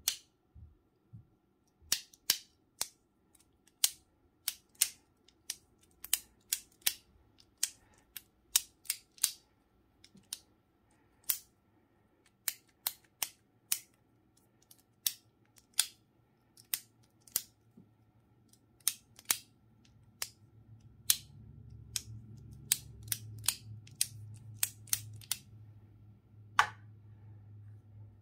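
Magnetically modified infinity cube, a plastic folding fidget cube fitted with magnets, being flipped by hand: sharp clicks as the blocks snap shut against each other, irregularly about one or two a second. A low steady hum comes up in the background about two-thirds of the way through.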